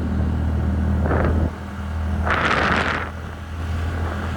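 TVS Ntorq 125 scooter's single-cylinder engine running steadily under way, easing briefly about a second and a half in. A louder burst of rushing noise about two seconds in.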